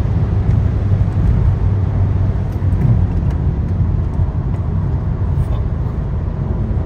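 Steady low road and wind rumble inside a car's cabin at high motorway speed, with a constant drone underneath.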